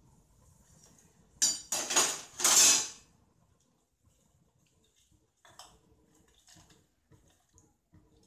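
Stainless-steel kitchen utensils clattering: a run of metal clinks and scrapes lasting about a second and a half, loudest near the end, followed by a few faint taps.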